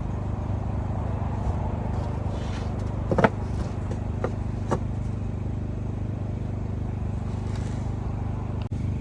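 A steady low machine hum runs throughout, with a sharp knock about three seconds in and a lighter knock a second and a half later. The sound drops out for an instant near the end.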